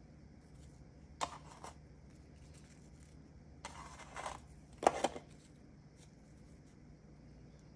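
Soft stuffed cookies being broken and pulled apart by hand: three short crumbly cracks, about a second in, around four seconds in, and a sharper one near five seconds.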